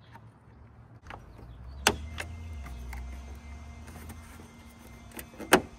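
Plastic push clips on a car's headlight eyebrow trim snapping loose as they are pried with a plastic trim tool. There are two sharp clicks, about two seconds in and near the end, the second the louder, with lighter ticks and a low rumble of handling between them.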